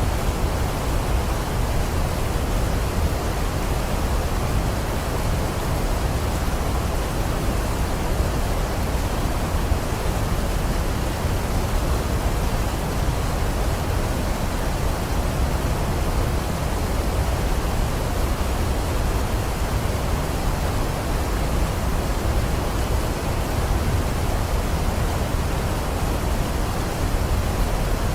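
Waterfall rushing in a steady, unbroken roar of water, deepest in the low end, with no change in level.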